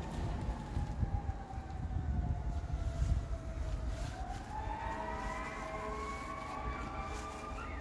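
Distant siren wailing: a single tone that slowly falls in pitch, then rises again about four seconds in, over a low rumble.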